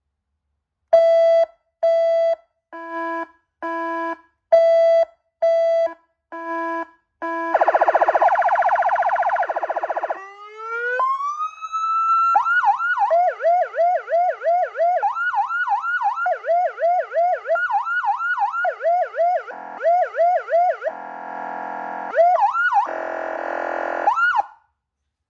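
SA5200 electronic police-escort siren sounding through a 200-watt horn speaker and stepping through its tones. It gives seven short beeps about a second apart, then a fast buzzing warble, a rising wail, and long runs of rapid yelps broken by short buzzing blasts, before it cuts off near the end.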